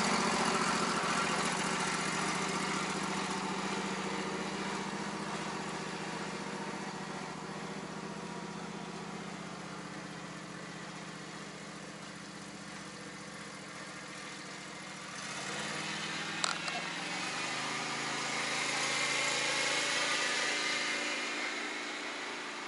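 John Deere riding lawn tractor's engine running as it pulls away, fading steadily over about fifteen seconds. Then a single click and a louder steady hiss.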